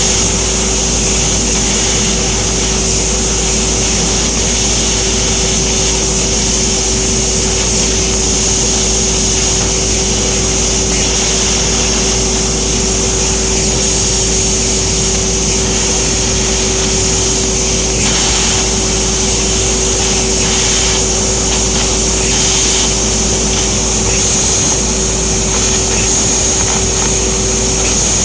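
EKS Laser ESF-3015GT 1 kW CNC fiber laser cutter running while cutting thin stainless steel: a steady hiss with a constant low hum.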